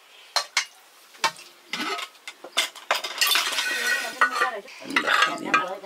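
Cutlery and dishes clinking during a meal: a few separate sharp clinks, then busier clatter from about three seconds in, with voices talking over it.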